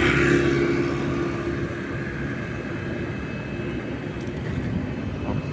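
Road traffic: a motor vehicle passing, its engine hum loudest at the start and fading out about three seconds in, over a steady low rumble of traffic.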